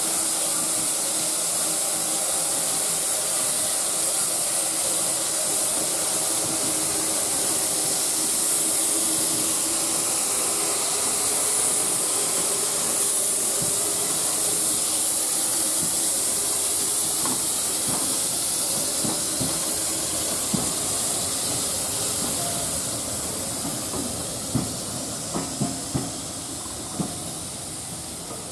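LB&SCR A1 'Terrier' 0-6-0 tank engine hissing steadily with steam as it draws its train slowly out. The coaches' wheels click over rail joints several times near the end.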